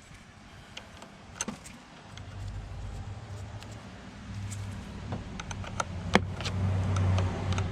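A low, steady engine hum grows louder over several seconds, with a few sharp clicks of hand tools against the battery terminals.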